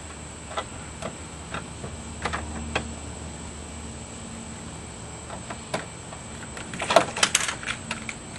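Small metallic clicks and taps of screws and a screwdriver being handled and started into a car door latch, with a quick cluster of louder rattling clicks about seven seconds in.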